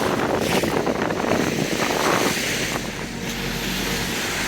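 Small waves washing in at the water's edge, swelling and easing every second or so, with wind rumbling on the microphone.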